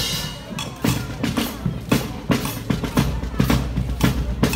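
Marching band drum line beating a steady cadence of snare and bass drum strokes, with a low held note joining about three seconds in.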